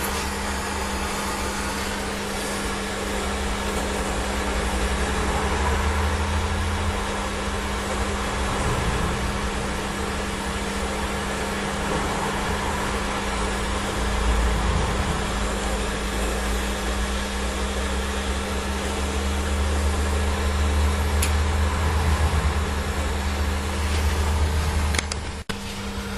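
Steady mechanical hum, like a fan or air blower, with a low rumble that swells and fades and a couple of faint clicks near the end.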